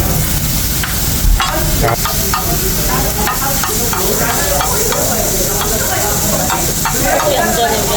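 Fried rice sizzling on a hot table grill plate while a spatula stirs, scrapes and presses it, with repeated short scraping strokes. The heat is turned up so the rice crisps into a scorched crust (nurungji).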